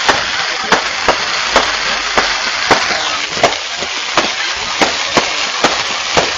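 Bonfire burning: sharp pops and cracks of burning wood, about two a second, over a steady hiss.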